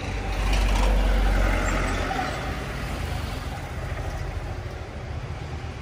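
Street traffic noise: a motor vehicle passes close by, swelling to its loudest about a second in, then steady low traffic rumble.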